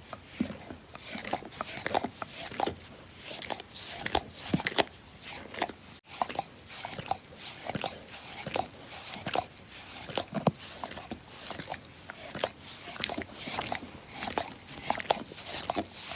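A dog licking: a continuous, irregular run of short wet smacking strokes, with a momentary break about six seconds in.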